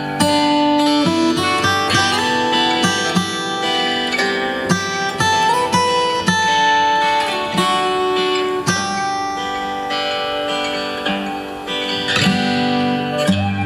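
Acoustic guitar picked and strummed, with a flute playing a melody of held notes over it.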